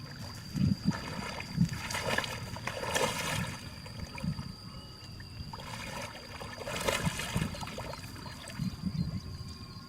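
Water sloshing and splashing, with three louder swishes and uneven low knocks, and a steady high-pitched tone behind.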